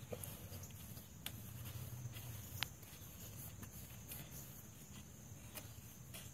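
Faint rubbing of a cloth towel wiping the water pump mating surface on an engine block, with a few light clicks, the sharpest about two and a half seconds in.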